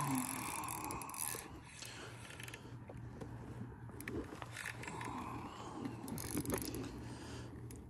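Spinning reel being cranked to reel in a hooked fish, the reel's gears and handle mechanism turning with scattered clicks and scrapes.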